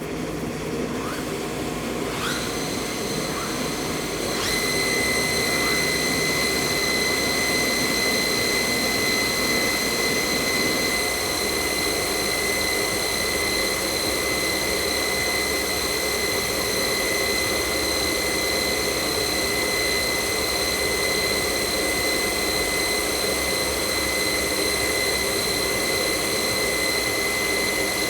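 Weinig U22N six-head moulder running: its cutterhead spindle motors come up to speed one after another in the first few seconds, each adding to a steady high whine, then the machine runs on at speed.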